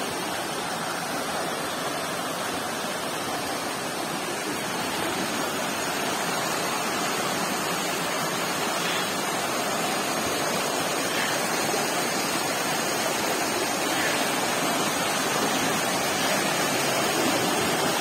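Waterfall rushing: a steady, even hiss of falling water that grows slightly louder over the stretch.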